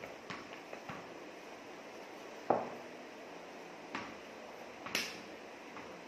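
A ball knocking on a hard tiled floor and off a cricket bat during indoor cricket: a handful of short, sharp knocks, the loudest about two and a half seconds in.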